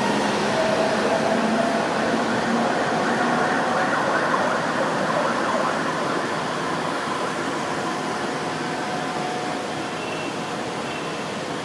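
São Paulo Metro trains moving through the station: steady wheel-and-track rumble with the electric traction motors' whine, easing off as the near train slows alongside the platform. A couple of short high squeals come near the end.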